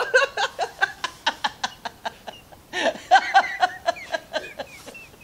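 Laughter: a man laughing in rapid pulses, about six a second, easing off and then picking up again about three seconds in.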